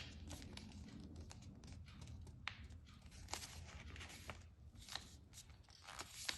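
Faint rustling and crinkling of a sheet of printer paper being handled and creased, with scattered small clicks as a paper airplane wing is folded down.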